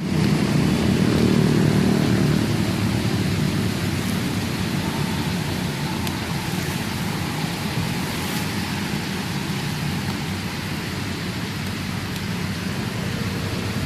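Steady rain falling, with a low rumble that is strongest in the first few seconds and then eases.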